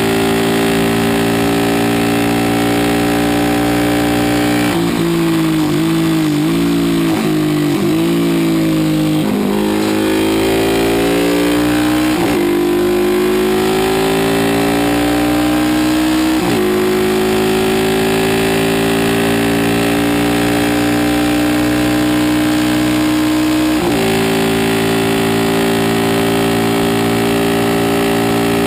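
Aermacchi Ala d'Oro 350 single-cylinder four-stroke racing motorcycle at racing speed, heard from onboard over wind rush. About five seconds in the revs fall in several quick steps as it slows for a corner. It then climbs again in rising sweeps, each cut by a sudden drop at a gear change about twelve and sixteen seconds in, and it holds steady revs near the end.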